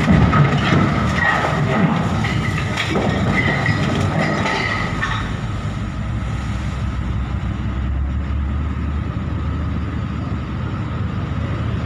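Steel ferry hull grinding and scraping against the concrete dock and its fender blocks as it rams the pier: crunching and knocking with high squeals for about the first five seconds, then a steady low rumble.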